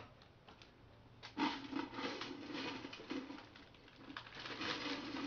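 Plastic snack packet crinkling and rustling as it is torn open by hand, starting about a second in. A low, steady hum-like tone sounds alongside it.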